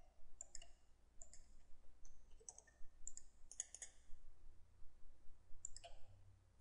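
Computer mouse buttons clicking faintly: a dozen or so short clicks at irregular intervals, several in quick pairs.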